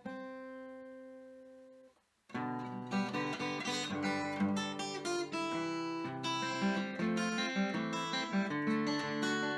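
Background music on acoustic guitar. A held chord rings out and fades for about two seconds, there is a brief pause, then busier playing starts up again.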